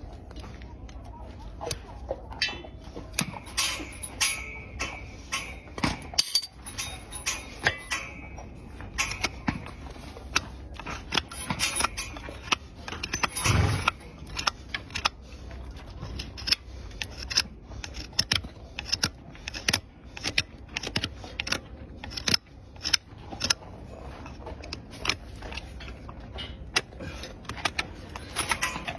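Horse's hoof being pared and trimmed with a farrier's hand tools: irregular sharp clicks and short scrapes of steel cutting hoof horn, with one heavier thump about halfway through.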